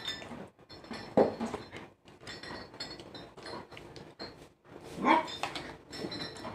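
A dog barking: one bark about a second in, then a short run of barks about five seconds in.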